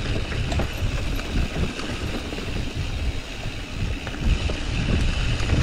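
Mountain bike rolling fast over a bumpy dirt trail, its tyres and frame rattling and knocking, with wind buffeting the microphone.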